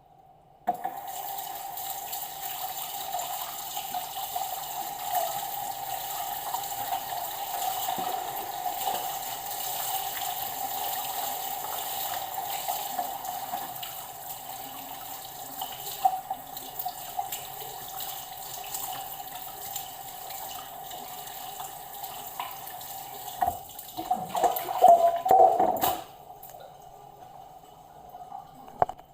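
Kitchen tap running into a sink while a whole raw chicken is rinsed under it to wash off the blood. The water starts about a second in, splashes louder and more unevenly near the end, then is shut off suddenly a few seconds before the end.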